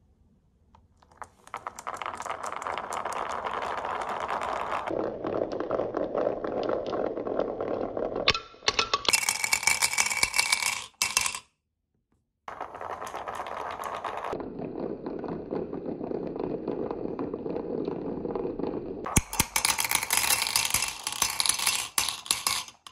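A batch of glass marbles rolling down a wooden wave-shaped slope track in a continuous rolling clatter, ending in bright clinking as they pile into a cup at the bottom. This happens twice, with a brief silent break between the two runs.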